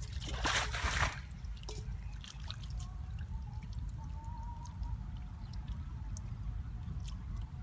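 Feet wading through shallow muddy water: one loud splash about half a second in, then small splashes, drips and trickling.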